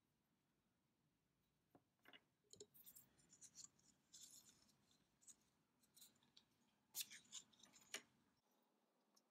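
Faint handling sounds of a roll of thread-seal (PTFE) tape being unwound and a strip torn off, mixed with the light clicks of small 3D-printed plastic parts being handled. The clicks and rustles start about two seconds in and come irregularly, with two sharper snaps near the end.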